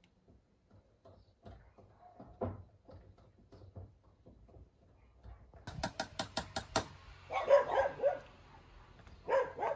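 A dog barking, loudest about three-quarters of the way through with another bark near the end, after a quick run of about six sharp clicks or taps.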